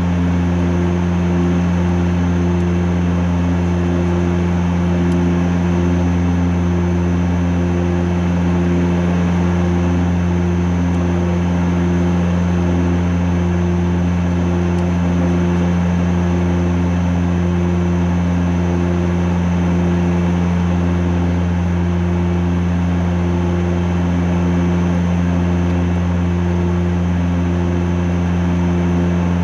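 Antonov An-26's twin Ivchenko AI-24 turboprop engines and propellers running steadily in the climb, heard from inside the cockpit: a loud, even, deep hum with a slow regular pulsing in its higher tones.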